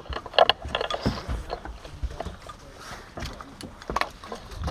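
Irregular clicks, knocks and rustling of gear and clothing being handled close to the microphone, with a few dull thumps among them.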